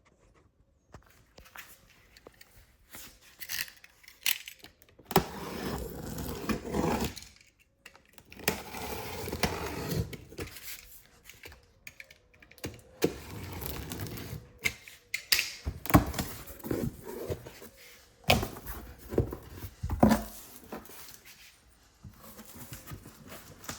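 Handling and unpacking a boxed inverter: irregular rustling of packaging with sharp clicks, knocks and thuds, in a small room.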